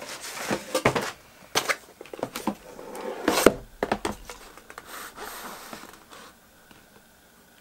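EK Vector2 RTX 4090 Strix/TUF waterblock, metal with a clear acrylic top, being handled and set down on a cardboard box. A series of clicks, knocks and rustles, loudest about three and a half seconds in, then dying down to light handling.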